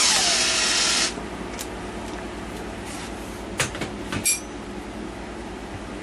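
Benchtop milling machine's spindle running with a hiss and a whine that falls in pitch as it winds down, cutting off about a second in. A low steady hum follows, with a couple of light knocks of handling on the machine.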